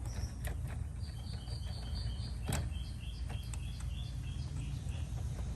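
A bird chirping in two runs of short, repeated high notes over a low outdoor rumble, with a few light clicks from wires and terminals being handled.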